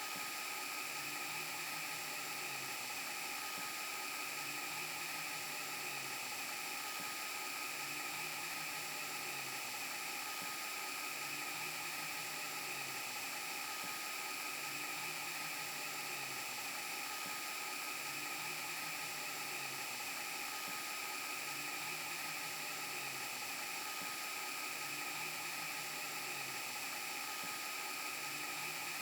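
VHS rewind glitch sound effect: a steady static hiss with constant high whining tones, and a low wobbling hum that repeats about every two seconds.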